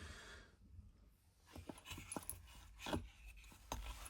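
Small metal parts of a watchmaker's wheel stretching tool clinking and clicking as they are handled, about five light knocks after a quiet first second, the loudest near the middle.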